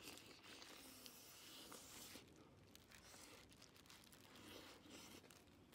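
Near silence: faint outdoor ambience with a few light rustles and clicks.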